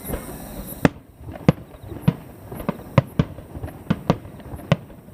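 Fireworks bursting in a rapid string of sharp booms, about two or three a second, each trailing off in a short rumble.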